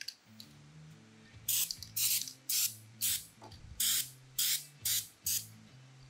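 Aerosol can of dry moly lubricant spraying in short hissing spurts, about nine quick squirts one after another.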